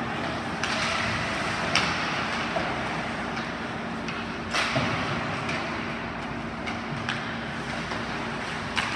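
Ice hockey play: skate blades scraping and hissing on the ice over a steady low hum, with sharp clacks of sticks and puck, three of them louder than the rest.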